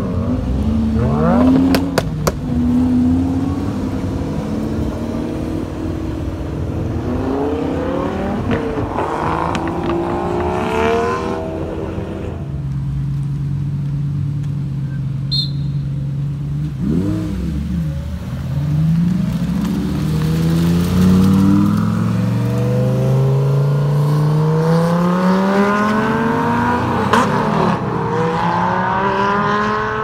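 Lamborghini supercar engines, among them a Huracán and a Gallardo V10, revving and accelerating hard. The engine pitch climbs again and again, with a few sharp cracks about two seconds in. A steady drone holds through the middle, and a long rising pull builds near the end.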